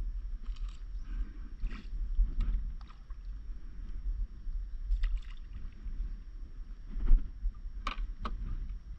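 Water lapping and splashing against a stand-up paddleboard, with scattered small knocks and splashes, over a steady low rumble of wind on the microphone. The sharpest splash or knock comes about seven seconds in.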